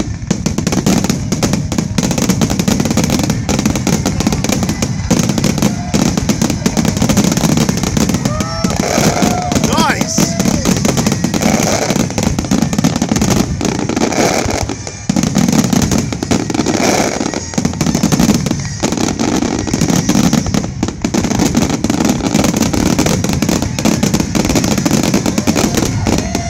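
A fireworks grand finale: a dense, nonstop barrage of aerial shell bursts and crackle, loud throughout.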